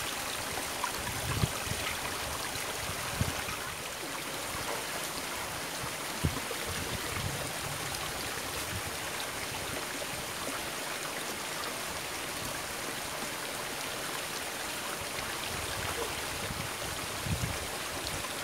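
A shallow rocky stream running, a steady even rush of water, with a few short soft thumps now and then.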